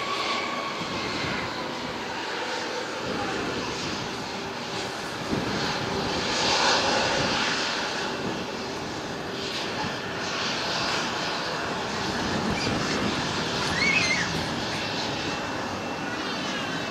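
Antonov An-124's four Progress D-18T turbofans heard from a distance as the freighter climbs away after take-off: a steady rumbling roar with a faint steady hum, swelling a little midway and again near the end.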